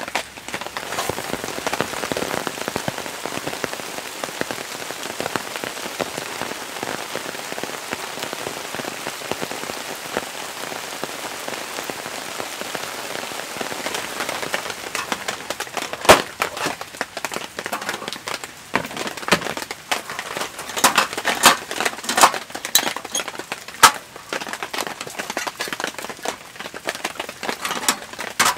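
Rain falling steadily. From about halfway through, loud, sharp taps and knocks come irregularly over the rain, the loudest a single crack.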